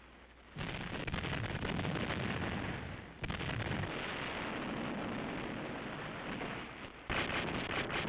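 Heavy naval gunfire: three sudden blasts, a few seconds apart, each followed by a long rumble.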